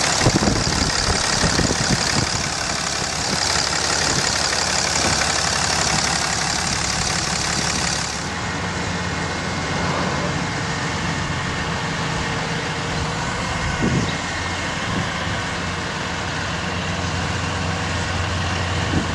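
Dodge Ram 5500's Cummins diesel engine idling. For about the first eight seconds it is heard up close under the open hood with a strong high hiss over it; after that the hiss drops away and the idle goes on as a steadier low hum while the truck's boom is raised.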